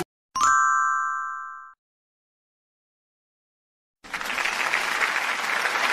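A single bright ding that rings out just after the start and fades away over about a second and a half. Silence follows, and then recorded applause starts about four seconds in and keeps going.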